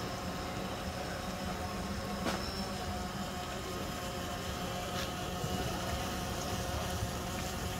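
Steady low machine hum with a few steady tones in it, and two faint clicks, one a little over two seconds in and one about five seconds in.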